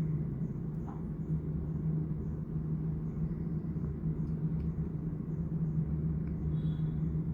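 Steady low background hum and rumble, with a few faint light clicks.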